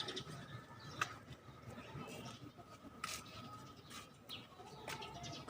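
Birds chirping faintly with short, high calls, including a couple of sharp notes about a second in and about three seconds in.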